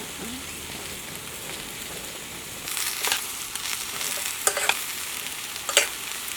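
Food sizzling in a pan, a steady frying hiss. From about three seconds in, a utensil scrapes and knocks against the pan in several short strokes as the food is stirred.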